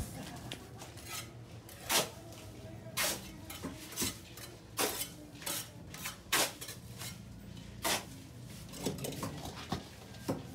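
Irregular metallic clinks and knocks, roughly one a second, some ringing briefly, over a low steady hum.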